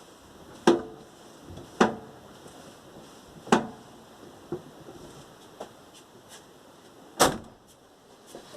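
Sharp clunks from the front end of a VAZ-21099 as the steering is turned: four loud knocks at uneven intervals with a few fainter ones between. The owner suspects a worn steering rack.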